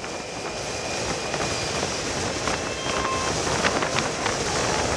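Steady wind and road rush from a Honda Activa scooter riding at road speed, slowly growing louder, with a car passing close alongside near the end.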